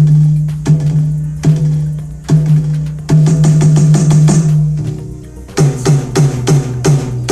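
AMW ED3 electronic drum kit's tom sound played through a speaker: single tom hits a little under a second apart, then a fast roll, then a run of quicker hits at a lower pitch near the end.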